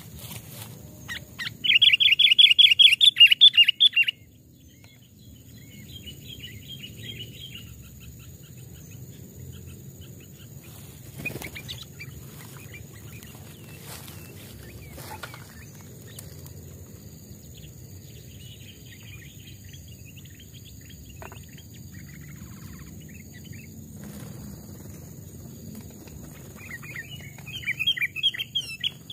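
Sooty-headed bulbul (kutilang) calling: a loud, rapid chattering run of notes about two seconds in, softer scattered calls in the middle, and another loud rapid burst near the end.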